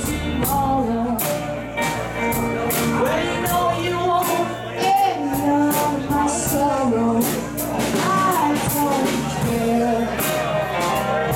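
Live rock band playing: a lead vocal sung over electric guitar, bass guitar and a Ludwig drum kit, with regular cymbal and drum hits.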